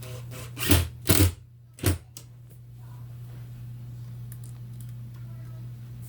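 Cordless screw gun run in three short bursts on the trigger, driving a screw into a drawer's roller rail.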